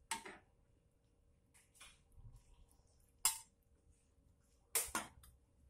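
Spatula scraping and clinking against a granite-coated wok and a serving bowl as food is scooped out: a handful of short scrapes and knocks, two in quick succession near the end.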